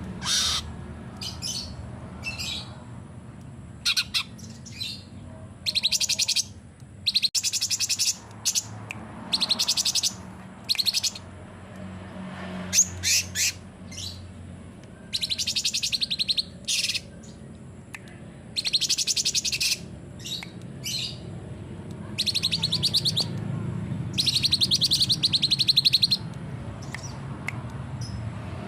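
Cucak cungkok songbird singing loud, rapid rattling bursts of song, each about a second or two long, broken by short sharp chirps. A faint low hum runs underneath.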